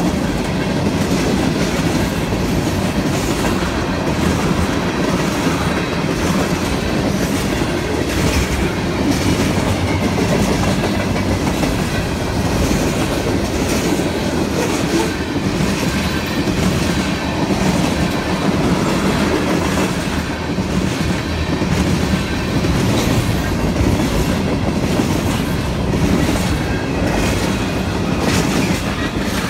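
Freight train of tank cars, covered hoppers and a gondola rolling past close by: a steady rumble of steel wheels on rail with repeated clacking as the wheels pass over the rail joints.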